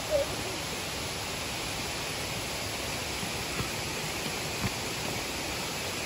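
Steady rushing of a waterfall, an even hiss of falling water, with a short pitched sound at the very start and a couple of faint knocks in the middle.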